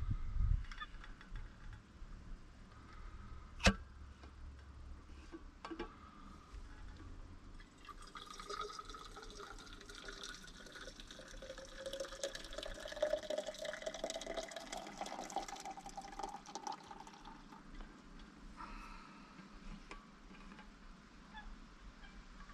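Liquid poured from a steel vacuum bottle into a cup, about 8 to 17 seconds in, with a tone that rises steadily in pitch as the cup fills. A single sharp click comes a few seconds before the pour.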